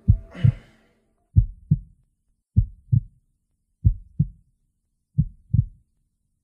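Heartbeat sound effect: slow, paired lub-dub thumps, one pair about every second and a quarter.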